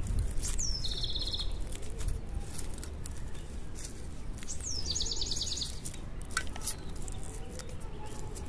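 A small bird calls twice, about four seconds apart: each call a quick high downward slur running into a short rapid trill. Faint crackles of dry roots and gravel being worked by hand come in between.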